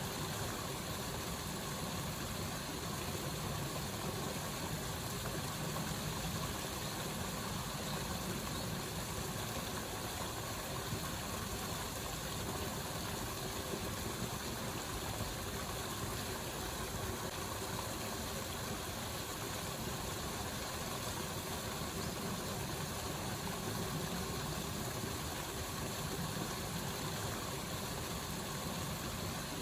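Waterfall rushing steadily, an even noise that never breaks.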